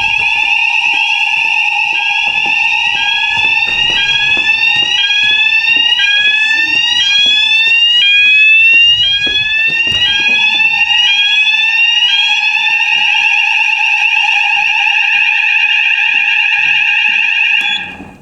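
Building fire alarm sounders going off during a weekly alarm test: a continuous steady alarm tone under a rising sweep tone that repeats about once a second. The sweeping tone drops out about two-thirds of the way through, and the steady tone cuts off suddenly near the end as the alarm is silenced.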